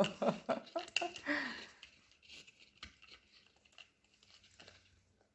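A small dog chewing a dried rabbit-ear chew, with a few faint crunches and clicks. A person's voice is heard in the first second and a half.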